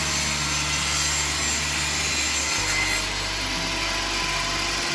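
Power saw cutting through a wooden board, a steady loud noise of the blade in the wood.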